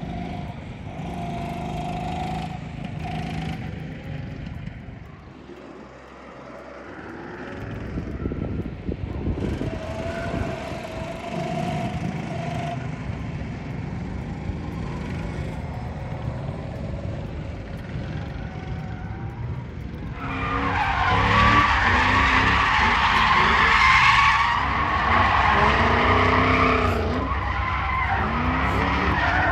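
Go-kart engines running as karts lap the track, their pitch rising and falling with the throttle. About twenty seconds in, a louder sound takes over: a car drifting, its tyres squealing without a break while its engine revs rise and fall.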